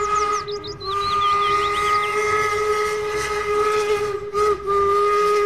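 Steam locomotive whistle blowing one long, steady chord, briefly dipping about half a second in and again near four and a half seconds.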